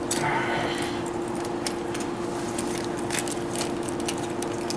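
Light, irregular metallic clicks and clinks of hand tools on transmission cooler line fittings, over a steady hum.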